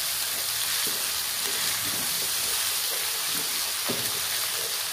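Chopped garlic and onion paste sizzling in hot olive oil in a kadhai, with a steady hiss. A wooden spoon stirs it and scrapes against the pan now and then.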